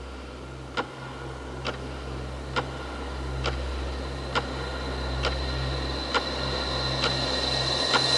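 Intro of a trance track: a clock-like tick a little under once a second over a low sustained synth drone. A high held tone swells in and the whole texture slowly grows louder.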